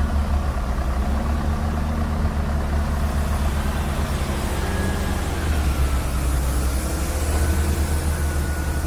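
Heavy diesel engines idling steadily, from a Scania S-series V8 truck and a CAT excavator: a deep, even engine note with a faint thin whine above it.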